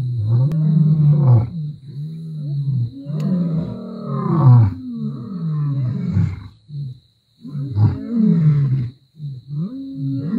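Male lion roaring: a run of long, deep roars with short breaks between them, several sliding down in pitch at the end.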